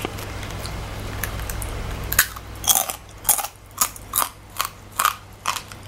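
Crunching chews on a fried scorpion claw, starting about two seconds in and going on at about two crunches a second; the claw is pure hard shell with no meat inside.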